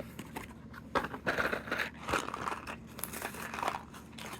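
Crinkling and tearing of a Lego minifigure blind packet being handled and opened, in irregular crackly bursts with small clicks.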